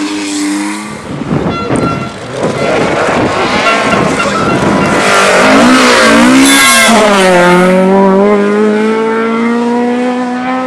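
Rally car engine revving hard at close range, its pitch climbing and dropping with throttle and gear changes, loudest a little past the middle, then settling into a steadier, lower note.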